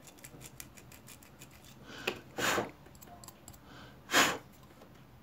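Faint rubbing and small clicks of rolled abrasive paper scraping a burnt LED's contacts on a bulb's circuit board, cleaning them down to bare metal so solder will take. Three short breathy puffs of air, near the middle and about four seconds in, are the loudest sounds.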